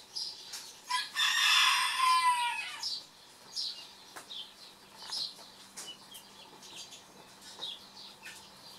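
A chicken's loud, drawn-out call starting about a second in and lasting nearly two seconds, ending in a falling tone. Faint short high chirps come and go through the rest.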